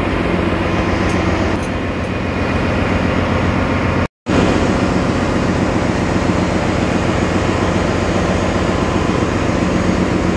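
Loud, steady ship engine-room machinery noise: a constant drone with a low hum underneath. It cuts out completely for a moment about four seconds in, then resumes unchanged.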